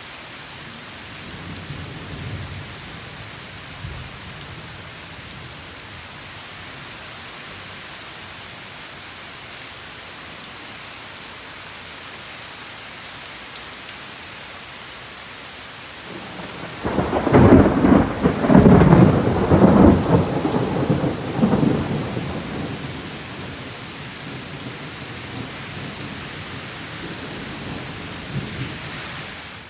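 Steady rain falling, with a faint low rumble of thunder in the first few seconds. About seventeen seconds in, a loud thunderclap breaks into a rolling rumble that dies away over several seconds.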